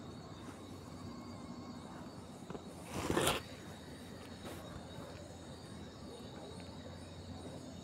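Faint steady background hum, with one short rustling burst about three seconds in.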